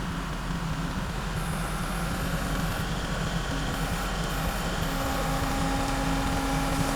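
A heavy engine running steadily with a low, even hum; a steady higher tone joins it about halfway through.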